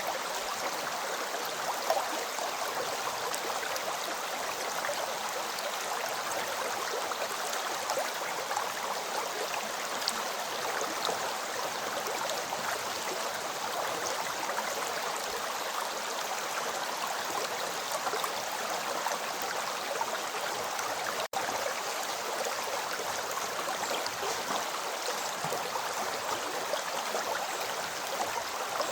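River water flowing: a steady, even rush with small gurgles and trickles, with one momentary dropout about two-thirds of the way through.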